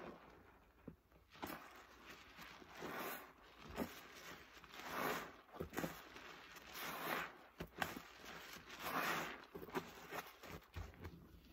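A suds-soaked foam sponge squeezed over and over by rubber-gloved hands in a basin of soapy rinse water, squishing and splashing, about one squeeze every two seconds.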